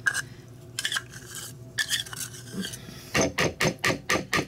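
Metal spoon scraping mayonnaise out of a measuring cup into a mixing bowl, then, about three seconds in, a quick run of sharp taps, about five a second, as the spoon is knocked against the cup to shake the last of the mayonnaise off.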